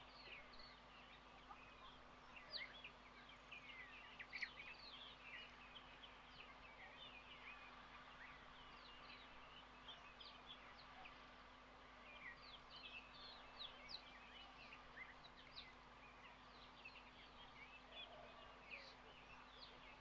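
Faint, busy chatter of many small birds: a steady stream of short, quick chirps overlapping one another, over a low steady hum.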